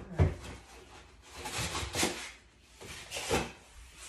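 Packing being pulled out of a cardboard box and handled: two sharp knocks at the start, then several swells of scraping and rubbing.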